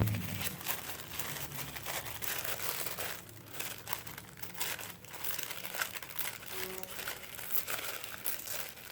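Packaging being handled while a subscription box is unpacked: irregular crinkling and rustling of paper wrapping, with sharp crackles.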